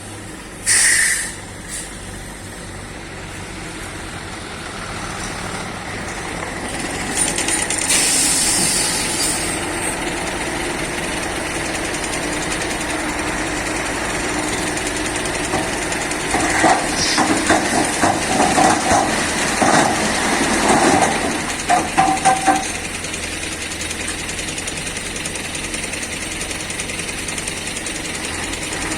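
Diesel engines of an excavator and dump truck running steadily, growing louder over the first several seconds. There are short hisses about a second in and around eight seconds in, and a run of clanks and knocks from about sixteen to twenty-two seconds.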